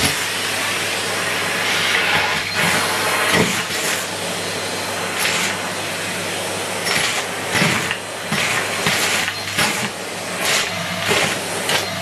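Numatic Henry HVT160 vacuum cleaner running, a steady rushing hiss of suction over a low hum, with short rattling clatters again and again as biscuit pieces are drawn up the bare metal wand.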